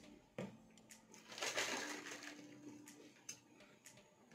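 Small eating sounds at a table: a knock about half a second in, light clicks, and a brief scraping, rustling sound about a second and a half in, as a spoon scoops mango flesh and a drink is sipped.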